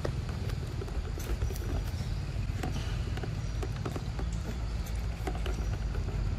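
Macaque chewing ripe mango close to the microphone: irregular wet smacks and clicks of biting and chewing, over a steady low rumble.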